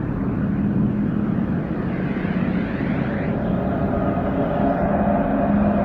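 A steady low rumbling drone with a slow, sweeping phasing quality.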